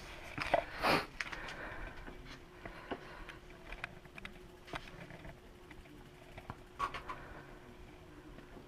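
Scattered light clicks and knocks of a torque wrench and bit being handled against the bicycle, a few in quick succession about a second in and one sharper knock near the end, over a faint steady hum.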